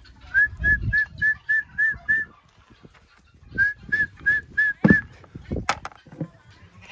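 A person whistling short, even notes at a steady pitch, about three a second, in two runs (seven, then after a pause five), calling the livestock to the feed. A few sharp knocks follow in the second half.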